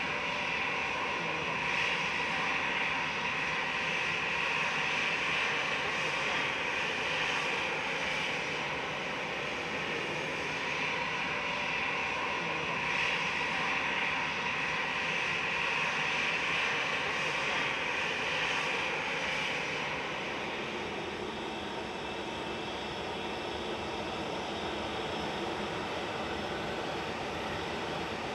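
Airliner engines running, a steady loud noise. It gets a little quieter about twenty seconds in.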